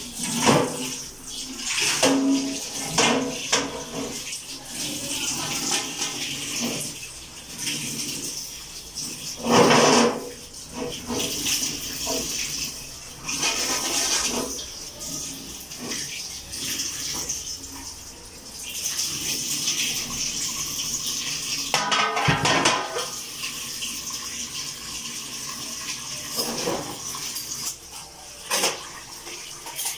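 Tap water running and splashing into a stainless-steel sink while a large metal tray is scrubbed and rinsed, with irregular clanks and knocks of the tray and louder splashing surges now and then.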